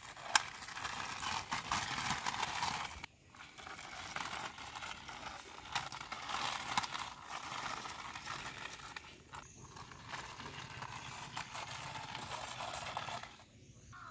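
Hard plastic wheels of a toy police motorbike rolling and scraping along a rough brick ledge as it is pushed by hand: a gritty rattle with small clicks, stopping briefly three times.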